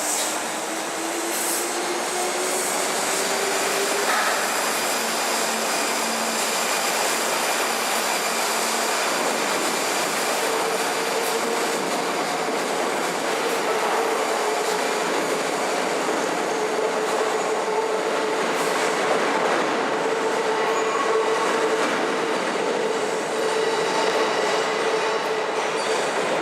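Kintetsu electric train running, its motor whine rising in pitch over the first few seconds as it gathers speed, then a steady high tone held over the running noise.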